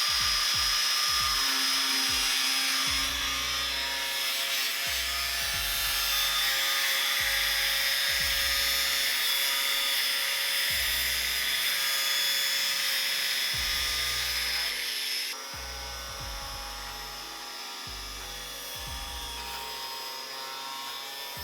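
A 6-inch angle grinder with a cutoff wheel runs with a steady high whine as it cuts through a plastic bumper grille. The sound steps down and gets quieter about fifteen seconds in.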